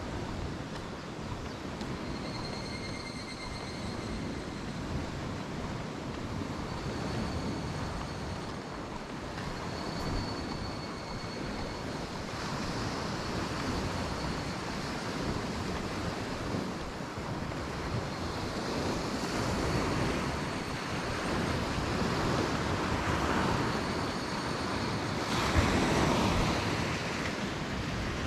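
Sea waves washing onto the shore, with wind buffeting the microphone, a steady rushing noise that swells louder near the end. A faint high-pitched call sounds briefly a few times over it.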